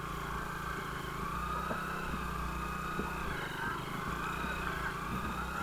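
Motorcycle engine running under throttle while the bike is stuck in soft sand. It holds a steady note that rises and falls slightly as the rider works the throttle to get free.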